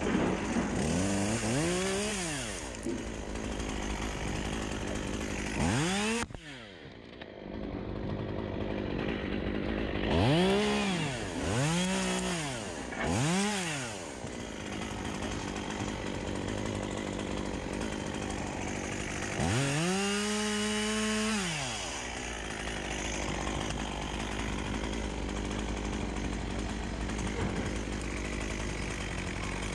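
Stihl chainsaw idling and being revved up and let back down again and again: three quick revs about ten seconds in, then held high for about two seconds near twenty seconds in. The sound drops away sharply for a moment about six seconds in.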